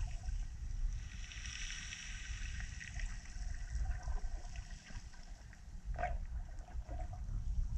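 Muffled underwater noise picked up by a submerged camera: a steady low rumble of moving water, with a stretch of crackling hiss about a second in and a few faint clicks later on.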